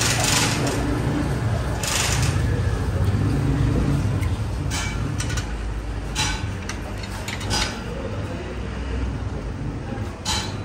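Clutch pressure plate being handled and fitted against a lathe, giving a few short metallic knocks and scrapes over a steady low machinery hum.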